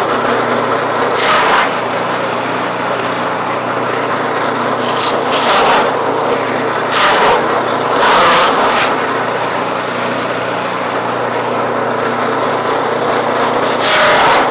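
Small forage chopper (mesin cacah rumput) running at speed: a steady engine-and-blade hum, with several louder rushing surges as bundles of green forage are fed in and shredded.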